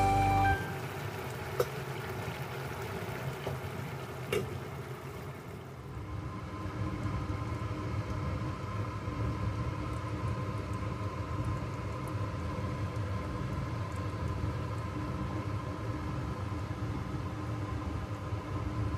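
Steady low hum and rumble from kitchen equipment, with a faint steady tone above it and a couple of faint clicks in the first few seconds.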